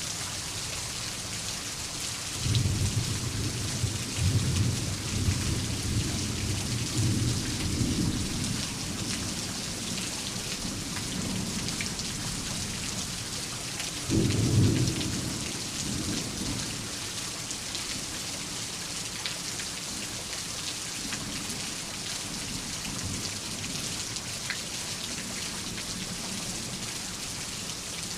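Steady heavy rain with rolling thunder: a long low rumble starting a few seconds in and fading, then a sharper clap about halfway through that rumbles away.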